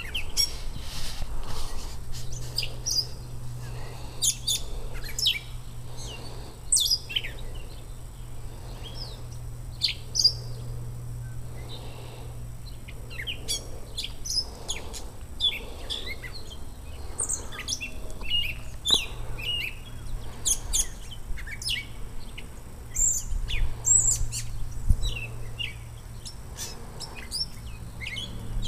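Birds chirping: many short, high chirps come again and again, over a steady low hum.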